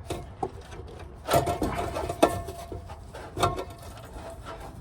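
Rear exhaust back box on a Mazda MX-5 being wrestled off its rubber hangers by hand: irregular rubbing and scraping, broken by several sharp knocks.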